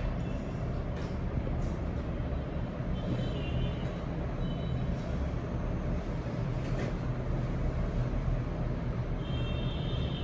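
Steady low background rumble with no speech, marked by a few faint clicks and, twice, a brief faint high tone.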